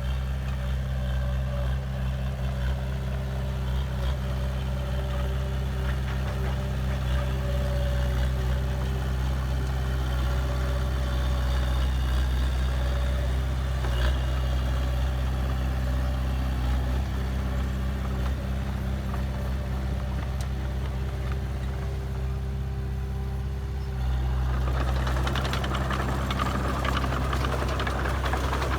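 Heavy diesel engine of earthmoving machinery running steadily with an even low hum. Near the end a louder, rougher rattling noise joins the engine.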